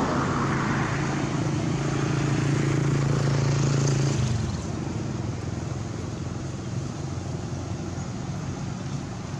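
A motor engine running with a steady hum, which stops about four seconds in and leaves a quieter steady outdoor background.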